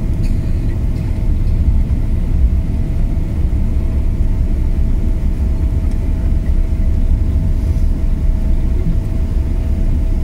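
Steady low rumble of a jet airliner rolling on the ground after landing, heard inside the cabin, with a faint steady hum over it.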